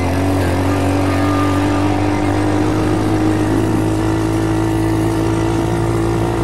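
SSR 110 pit bike's single-cylinder four-stroke engine running under steady throttle while riding, its pitch climbing slowly as the bike gathers speed.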